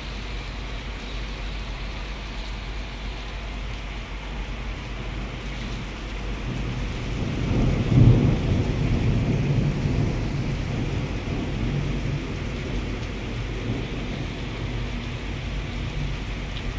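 Heavy rain falling steadily, with a low rumble of thunder that swells about eight seconds in and then fades.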